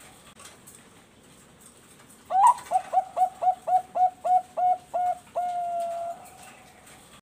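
Zebra dove (Thai-bred perkutut bangkok) singing one song phrase. It opens with a rising note about two seconds in, runs into a quick string of about ten short coos at roughly four a second, and ends on one long held coo.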